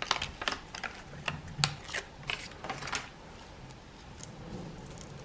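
A quick irregular run of light clicks and rustles from plastic packaging being handled as the replacement adhesive strips are unpacked. It stops about three seconds in, leaving only faint room tone.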